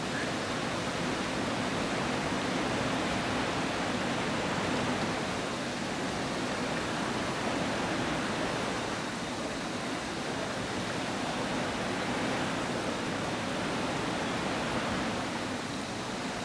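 Steady rush of river white water pouring over a weir or falls.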